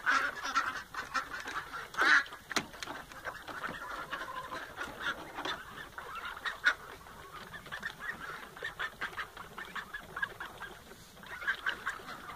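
A flock of Khaki Campbell ducks and chickens calling as they feed: ducks quacking and chickens clucking in many short, overlapping calls, the loudest about two seconds in.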